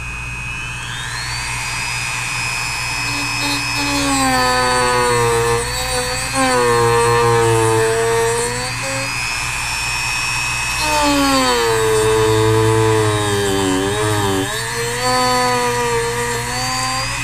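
Dremel rotary tool running at high speed, a steady high whine, as it cuts off glued-in toothpicks flush in a wooden cabinet's screw holes. Twice a lower drone sinks and rises as the bit bites into the wood and is eased off.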